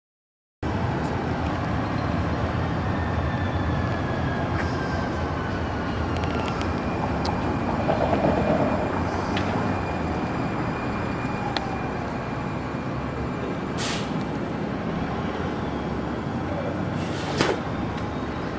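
TriMet MAX light-rail train approaching and pulling into a station platform over a steady running noise. A thin whine falls in pitch over the first few seconds, and two sharp clicks come near the end.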